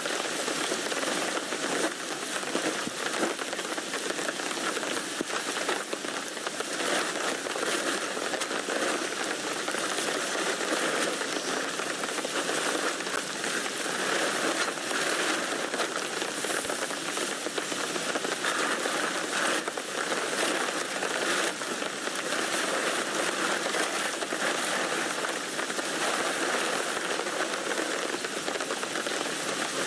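Rain falling steadily on a tent, an even hiss made of many small drop impacts.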